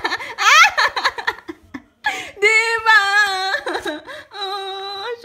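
A dog vocalizing in play while tugging a flip-flop: a quick run of short rising yips, then two long, wavering howl-like 'woo' calls, the first about two seconds in, the second near the end.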